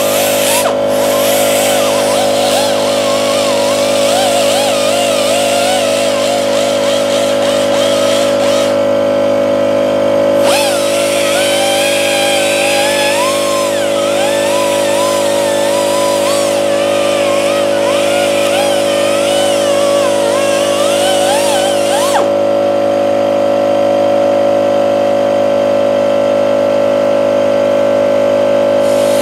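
Angle grinder with a half-worn disc running steadily, lightly polishing rust off a steel engine shaft. There is a constant motor tone with a wavering higher grinding sound over it that shifts about ten seconds in and again about twenty-two seconds in.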